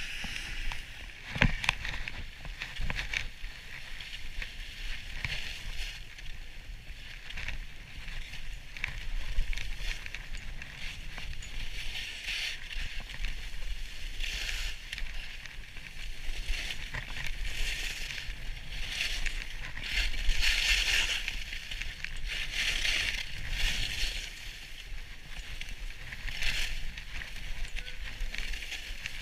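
Skiing downhill on snow: edges scraping and hissing over the snow in repeated swells every second or two as turns are made, with wind rumbling on the microphone. A couple of sharp knocks about a second and a half in.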